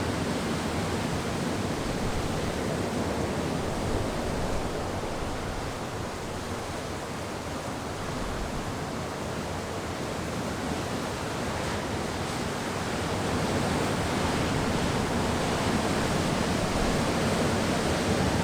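Wind sound effect: a steady rushing noise that eases a little in the middle and then builds again.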